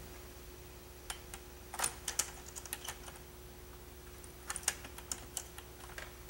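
Scattered light clicks and ticks of a small loop of 1/16-inch steel wire being bent closed by hand around a plastic steering horn, irregular and faint, over a faint steady hum.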